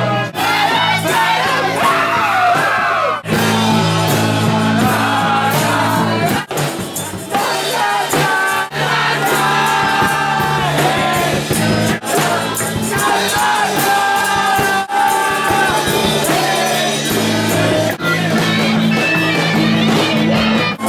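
A group of voices singing together over held electric-keyboard chords, the music breaking off and changing abruptly every few seconds.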